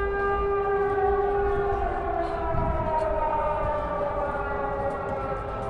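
Civil-defence air-raid sirens wailing, the signal of an air-raid alert: one holds a steady tone while another slides slowly down in pitch.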